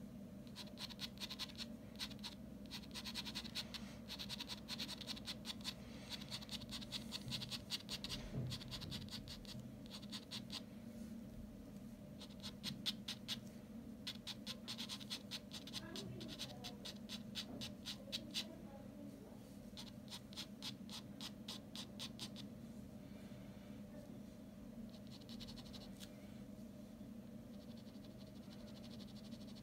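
Ballpoint pen scratching faintly across drawing paper in rapid, short hatching strokes that come in bursts. The strokes thin out and grow fainter about three quarters of the way through.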